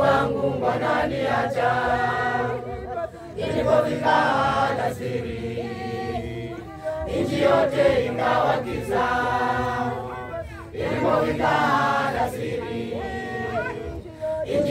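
A large women's choir singing a Swahili hymn without instruments, in phrases broken by short pauses.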